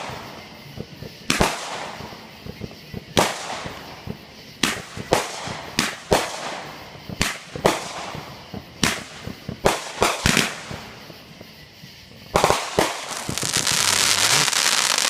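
Consumer fireworks going off: a string of sharp bangs roughly every second. Near the end comes a loud, dense hissing crackle lasting a second or two.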